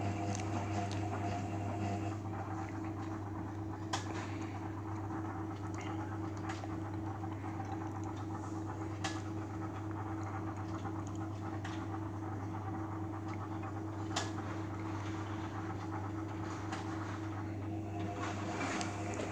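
Beko Eco Care WMA 1510 W washing machine running a 60°C eco wash: a steady hum with a few faint clicks about five seconds apart.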